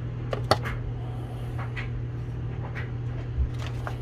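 A steady low hum with a handful of light clicks and taps, and one dull thump a little past three seconds in, as small parts and tools are handled on a workbench.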